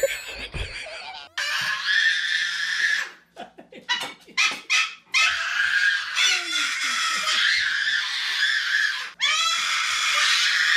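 A toddler and a white cockatoo screaming back and forth: long harsh screeches, with a run of short cries in the middle.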